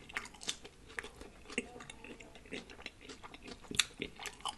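Chewing and mouth smacking of someone eating a birria-and-cheese pupusa: a run of irregular small smacks and clicks, the loudest nearly four seconds in.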